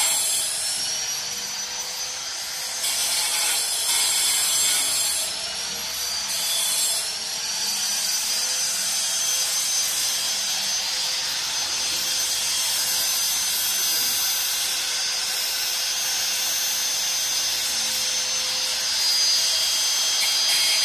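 Angle grinder cutting a shallow line into a concrete floor: a steady high whine over gritty grinding. The whine sags in pitch a few times as the disc is pressed into the cut, then recovers.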